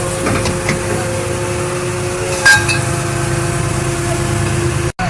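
Metal clinks and clanks of gear on a fishing boat's deck over the steady hum of the boat's engine. There is one loud clank about two and a half seconds in, and the sound drops out for an instant near the end.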